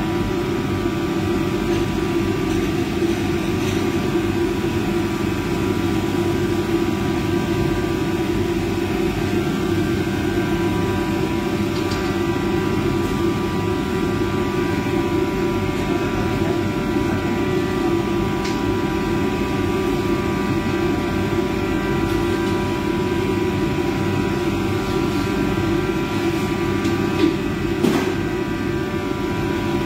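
Steady drone of a commercial kitchen's exhaust hood and equipment running, with a couple of short knocks near the end.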